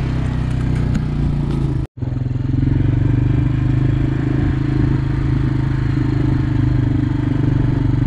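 Engine of a farm vehicle running at a steady speed while driving along a dirt track, with an abrupt brief dropout about two seconds in.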